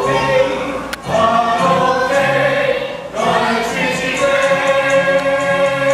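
Several voices singing together. There are short sung phrases with brief breaks about one and three seconds in, then a long held note.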